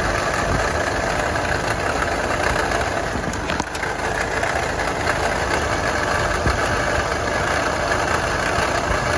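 Nissan Navara's turbodiesel engine idling steadily, heard close up with its failing alternator, whose worn bearing rattles.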